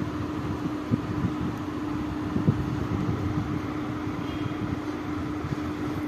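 Steady mechanical hum with one constant low tone, like a room fan or air conditioner running, and two soft thumps, about a second in and near the middle.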